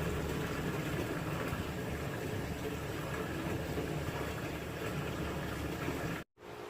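Water running into a Panasonic washing machine's tub as it fills, a steady gushing wash with a low rumble. It cuts off abruptly near the end, giving way to a quieter steady hum.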